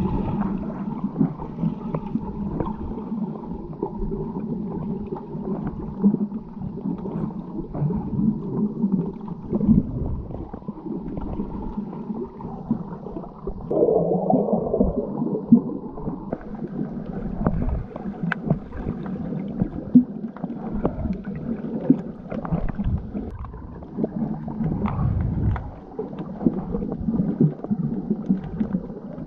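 Muffled water noise picked up by a snorkeller's camera in the water: gurgling and sloshing that swells and fades, with scattered clicks and knocks and a louder gurgling burst about halfway through.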